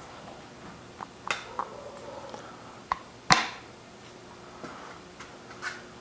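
Scattered light clicks and clinks of RockShox fork lower legs and small bottom-bolt parts being handled, with one sharper knock about three seconds in.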